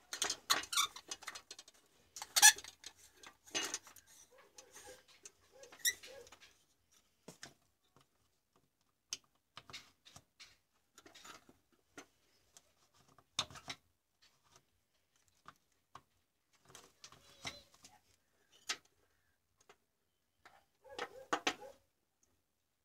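Hands handling a dismantled compact fluorescent bulb's plastic base and ballast circuit board: scattered clicks, taps and scrapes with quiet gaps, loudest about two and a half seconds in, with a brief cluster of rustling near the end.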